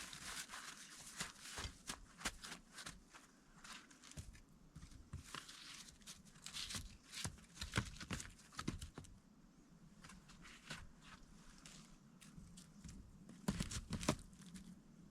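Irregular crunching, cracking and rustling from handling and moving about, with a cluster of sharper cracks near the end.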